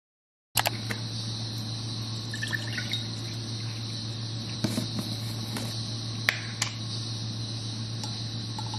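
Juice poured from a bottle into a glass jar, then a few light clicks and taps as a scoop of powder is added, over a steady low hum and hiss.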